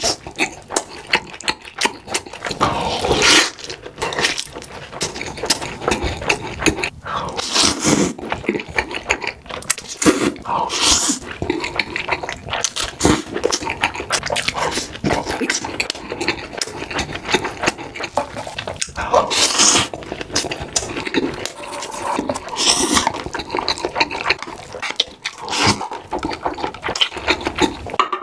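Close-miked eating: biting into a steamed soup dumpling and pieces of fried stuffed bread, and chewing, with irregular bites and mouth sounds throughout.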